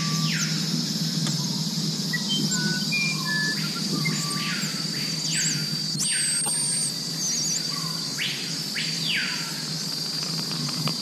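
Wild chorus of Amazon animals: a steady high insect drone under repeated short whistled bird notes and downward-sweeping calls, with a faint steady low hum underneath.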